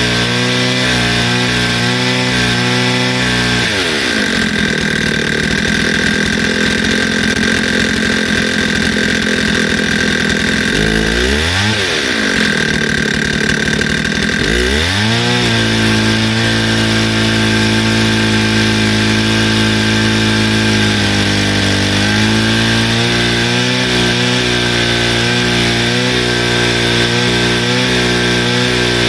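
Stihl FS160 brushcutter's two-stroke engine running. It idles, is revved up to high speed about four seconds in and held there, drops and revs again briefly, then settles back to a steady idle about fifteen seconds in.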